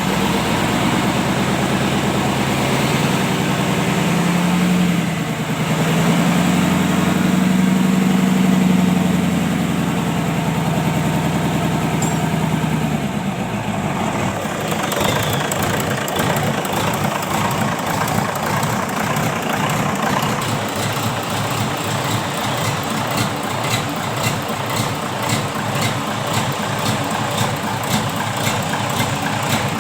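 Mitsubishi 8DC8 V8 diesel engine held at raised revs for about ten seconds. It then drops back to idle with an even pulsing beat.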